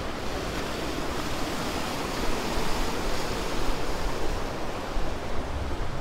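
Steady rush of a fast-flowing mountain creek, swelling a little louder midway, with a low rumble underneath.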